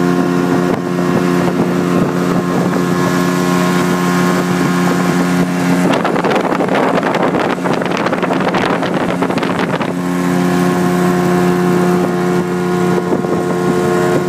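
Outboard motor of a small boat running steadily at cruising speed, a constant even drone. For a few seconds in the middle, wind rushing over the microphone drowns the engine out.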